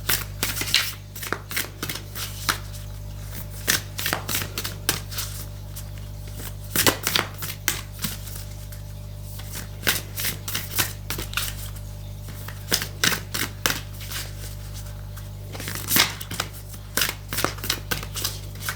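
Irregular sharp clicks and taps, often several in quick succession, over a steady low electrical hum.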